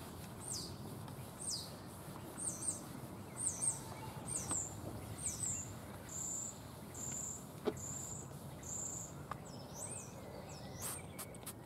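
A small bird singing: a run of high, thin, downward-slurred notes, then four short, steady whistled notes about a second apart, then more slurred notes near the end.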